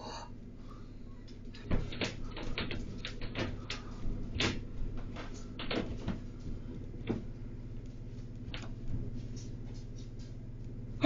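Irregular knocks, clicks and rustles of a person moving about a room, the sharpest about two seconds in, over a steady low hum.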